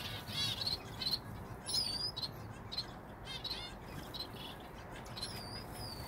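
Small aviary finches chirping: a quick, irregular string of short high calls, with a couple of higher sliding calls about two seconds in.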